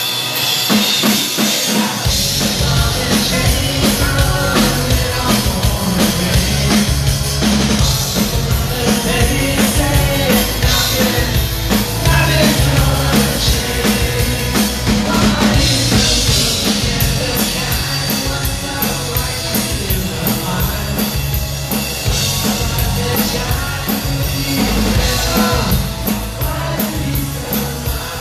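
Live rock band playing: drum kit, electric bass and electric guitars, with a male lead vocal. The bass and kick drum come in about two seconds in.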